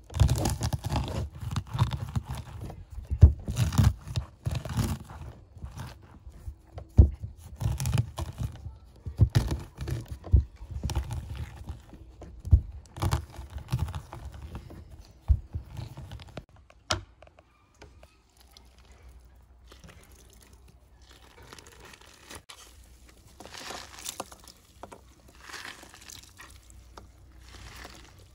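A whole pomegranate pressed and rolled hard under the palms on a wooden cutting board, the arils crunching and bursting inside the skin with irregular knocks against the board, to soften the fruit for juicing. About 17 seconds in it goes much quieter, with only a few faint soft sounds.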